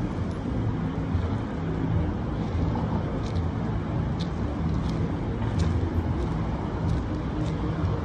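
Street traffic: a steady low rumble of cars and engines, with several short high clicks over it.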